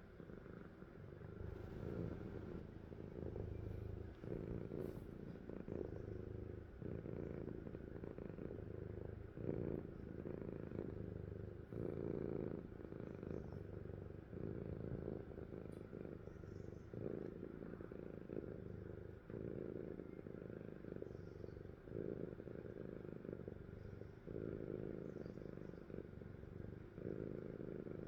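A sleeping cat snoring: a low rumbling purr-like snore that swells and fades with each breath, about one breath every two seconds.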